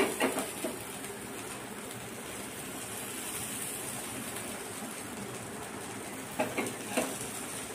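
Oil sizzling steadily under a rajgira thalipeeth roasting on a hot nonstick tawa, just after oil has been added around it so it crisps and won't stick. A couple of short louder sounds come about six and a half and seven seconds in.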